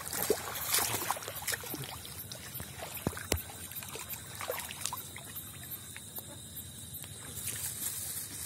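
Clear plastic bag crinkling and rustling as it is handled, with scattered crackles and one sharper click about three seconds in.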